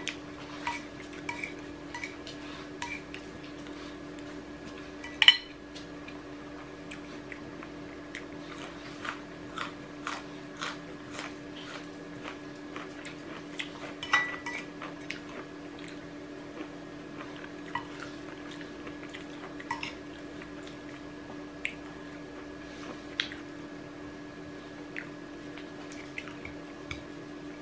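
Metal spoon and fork clinking and scraping against a ceramic rice bowl while eating, with scattered light clicks and one sharper knock about five seconds in. A steady low hum runs underneath.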